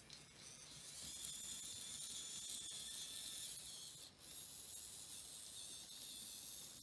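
Faint, steady high-pitched hiss that gets louder about a second in and dips briefly near the middle.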